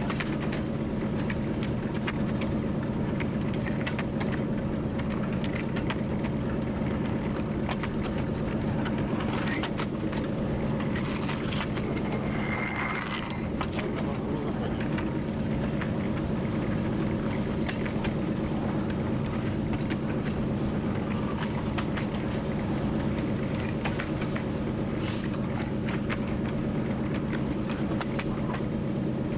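TU7 narrow-gauge diesel locomotive running steadily under way, its engine drone heard from the cab with frequent clicks and knocks from the wheels and track. A faint, brief high tone sounds near the middle.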